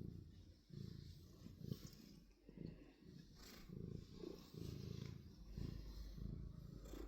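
Domestic cat purring, a low rumble that swells and fades about once a second with each breath in and out.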